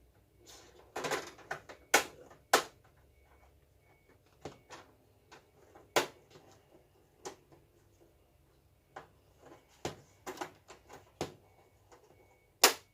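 Irregular sharp clicks and knocks of an LED TV's inner frame being fitted back over the backlight panel and pressed onto its clips, the loudest knocks about two seconds in and near the end.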